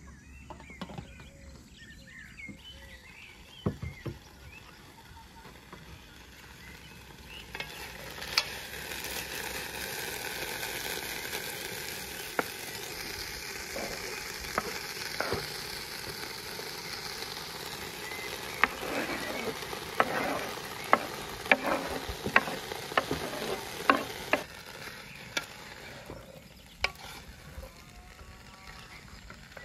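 Chopped onions and peppers sizzling in a hot pot, the sizzle starting about a quarter of the way in. A wooden spatula knocks and scrapes against the pot several times as the vegetables are stirred.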